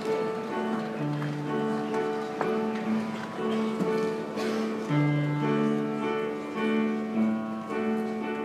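Instrumental accompaniment music without singing: a repeating pattern of held chords with a bass note that comes back about every four seconds.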